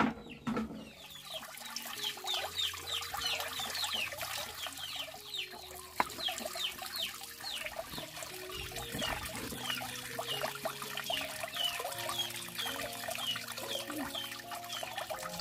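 Poultry calling: a steady stream of short, high, falling peeps, about two or three a second, with lower calls underneath.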